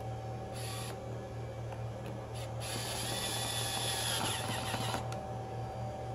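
Hand screwdriver driving a screw into a plastic blower motor housing: two short scrapes, then a longer grinding, faintly squealing scrape that stops abruptly about five seconds in. A steady low hum runs underneath.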